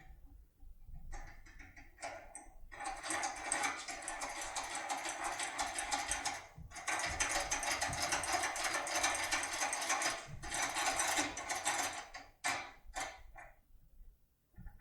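Heracles Y8 foil-impression lockpick rocked rapidly up and down in a cylinder lock's keyway, making a dense metallic clicking rattle in two long runs. Near the end come a few separate clicks.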